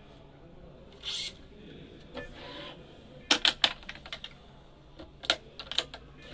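Badminton racket being strung on a stringing machine: string rasps as it is drawn through the string bed twice, then a quick run of sharp clicks about halfway through and a few more clicks near the end.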